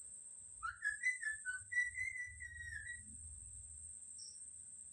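Parrot whistling: a run of clear whistled notes stepping up and down in pitch for about two seconds, starting under a second in. A faint steady high-pitched whine runs underneath.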